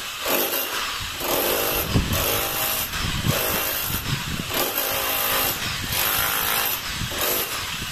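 Corded electric chipping hammer with a chisel bit, running continuously while it chips plaster and masonry at the base of a wall. Its pitch wavers as the bit bites into the wall.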